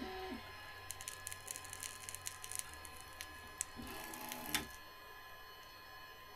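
Bambu Lab A1 Mini 3D printer doing its automatic bed leveling: a run of light, irregular ticks as the nozzle probes the build plate, with short stepper-motor whines as the toolhead moves, once at the start and again about four seconds in.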